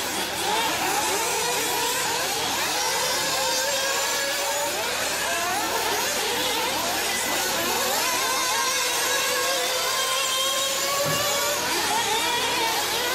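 Several 1/8-scale nitro off-road RC buggy engines buzzing and revving at once, their high pitches constantly rising and falling as the cars accelerate and brake around the track.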